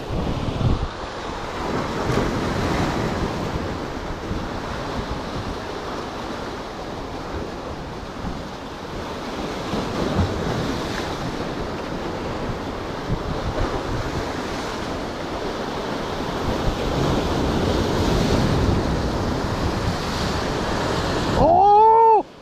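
Sea waves breaking and washing over the rocks of a breakwater, with wind buffeting the microphone. Near the end a sudden loud shout cuts in over the surf.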